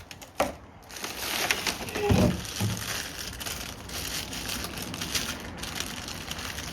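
Packing material crinkling and rustling as bike rack parts are handled and unwrapped from their box, with many small crackles.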